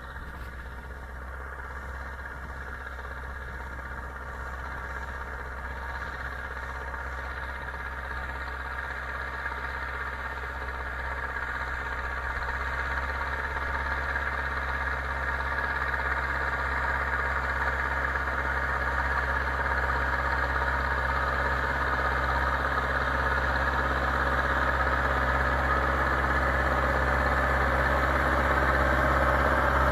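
Zetor 7745 Turbo tractor's turbocharged four-cylinder diesel engine running at a steady pitch, growing steadily louder throughout.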